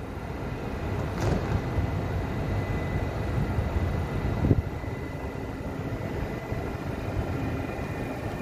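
Steady low rumble of a DB class 628 diesel railcar idling at the platform, with a faint steady whine over it. There are two short knocks, about a second in and about four and a half seconds in.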